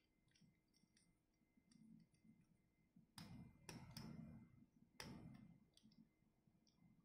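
Faint clicks and ticks of small plastic model-kit parts being pressed together as a backpack is fitted onto a small plastic mech figure, with three sharper clicks a few seconds in.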